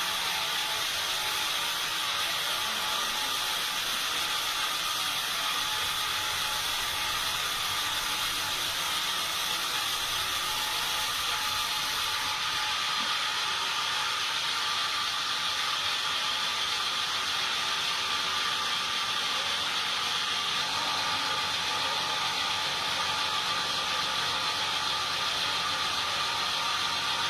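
Sawmill machinery running steadily: a continuous mechanical hiss with a steady high whine.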